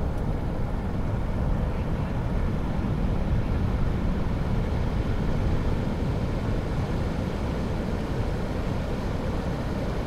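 Heavy ocean surf breaking on a reef: a steady, unbroken rush of waves with most of its weight in the low range.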